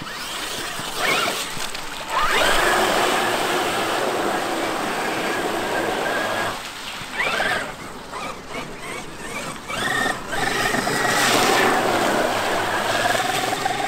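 Electric motor whine of an RC monster truck driving hard through muddy puddles, with a rising whine as it speeds up and the hiss of tyres throwing spray. It swells about two seconds in, drops back after about six seconds, and is loud again near the end.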